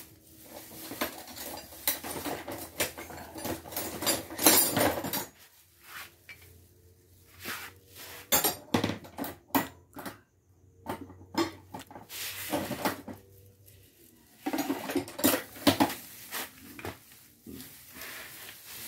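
Metal hand tools clattering and clinking as they are rummaged through in a plastic tool tray, in irregular clusters of knocks with short pauses between.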